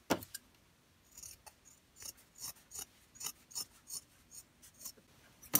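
Scissors cutting through thick terry-cloth towel, trimming the seam allowance next to a fresh seam: a string of short snips about two a second, the first one the loudest.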